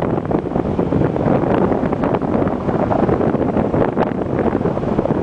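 Wind rushing over the microphone in flight under a paraglider: a loud, steady roar of air with constant gusty buffeting.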